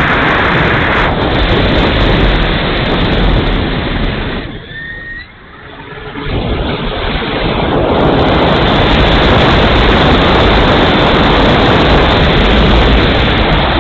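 Airflow and propeller noise on the onboard camera of a radio-controlled Hawker Hurricane model in flight: a loud, steady rush. It drops away for a couple of seconds near the middle, with a brief faint whistle, then comes back loud and steady.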